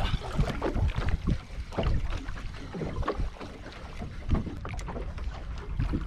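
Wind buffeting the microphone in uneven gusts, with water lapping and slapping against the hull of a small boat lying stopped on the water.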